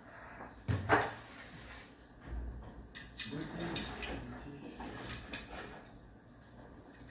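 Knocks and clatter of hard objects being handled: a loud knock about a second in, then a run of clicks and rattles about three to four seconds in.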